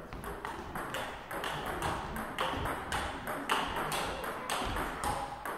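Table tennis rally: the ball clicks sharply and evenly, about four times a second, as it is struck by the bats and bounces on the table.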